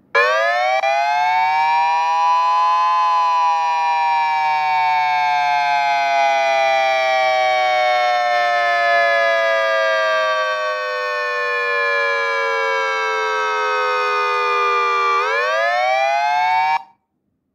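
Siren tone played loud through a homemade two-driver cardboard-box speaker. The pitch rises sharply at the start, then falls slowly for about twelve seconds, climbs quickly again near the end and cuts off abruptly.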